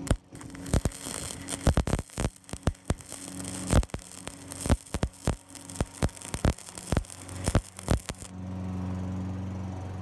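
Flux-core arc welding with a Titanium Flux 125 welder on an exhaust pipe: an irregular crackling and popping arc as built-up filler metal is melted down over the leak holes. It stops about 8 seconds in, leaving a steady low hum.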